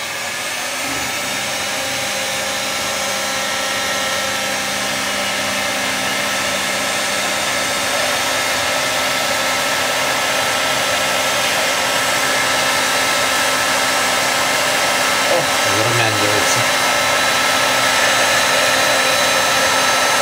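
Heat gun running steadily, blowing hot air onto deep-fried potato sticks to crisp them and blow off the excess oil: a steady rush of air with a motor whine.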